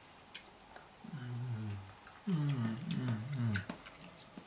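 A man's low, wordless humming: one longer falling hum, then a run of short falling hums. A sharp click comes just after the start.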